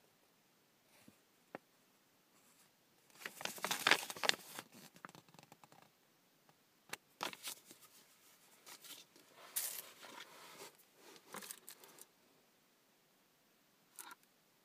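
Paper and plastic rustling and crinkling as a product box is unpacked by hand, in irregular bursts, the loudest about three to four seconds in, then a few shorter ones and a brief one near the end.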